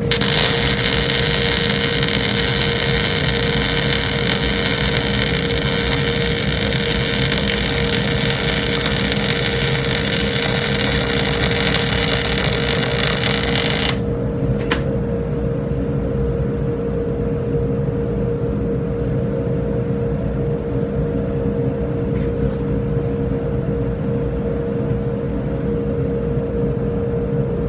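Electric arc welding on steel: a dense, steady crackling hiss for about half the stretch that cuts off suddenly, then one short burst of arc a moment later, all over a constant machine hum.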